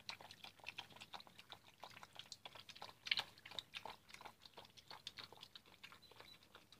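Puppies eating together from a bowl: a quick, irregular run of small chewing and crunching clicks, with one louder click about three seconds in.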